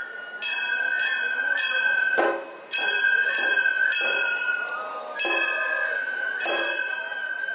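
Gion-bayashi festival music: small bronze hand gongs (kane) struck in a quick, clanging rhythm over a bamboo flute holding a high note.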